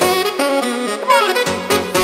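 Background music: a melody line with a sliding note near the middle, over a break where the steady drum beat drops out.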